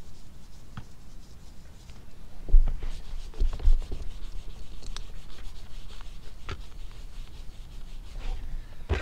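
A degreasing wipe rubbing and scrubbing on a camper van's roof, cleaning the spots where the solar-panel brackets will be glued. A few low thumps come about two and a half to four seconds in.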